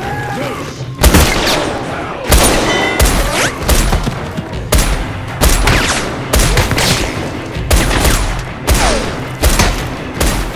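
Sound-effect gunfire: a run of about fifteen shots at uneven spacing, roughly one every half-second, starting about a second in. Some shots are trailed by a short falling whine.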